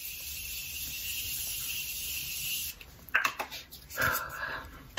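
Morphe Continuous Setting Mist spraying onto the face: one long, fine, steady hiss of continuous mist lasting about two and a half seconds, then cutting off.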